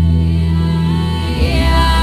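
Background music: slow, sustained ambient music with a held bass note that changes about a second and a half in, and a sung or chanted vocal line.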